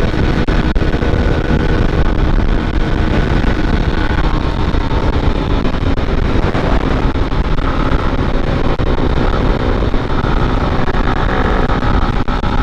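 Small motorcycle engine running while riding along the road, under a steady rush of wind noise on the microphone, with faint engine pitch lines shifting now and then.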